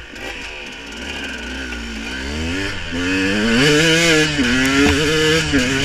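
An engine revving: its pitch sinks over the first two seconds, then climbs and swings up and down with the throttle, louder in the second half.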